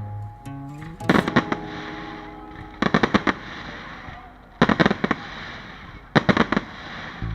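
Fireworks going off in four clusters of rapid sharp cracks, about one and a half seconds apart, with music playing underneath.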